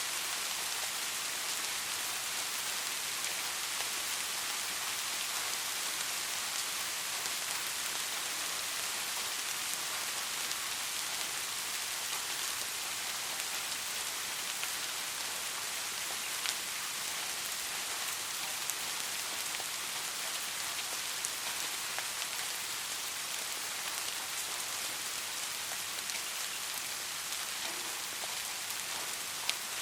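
Steady light rain falling, an even hiss with a few separate drops tapping now and then, one louder tap near the end.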